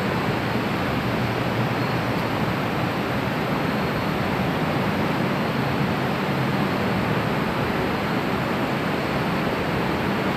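Steady, even rushing noise of a metro station platform with a train standing at it, with no distinct events standing out.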